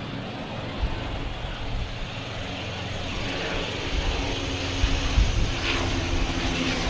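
Canadair firefighting water bomber flying overhead, its engine drone growing louder from about halfway through.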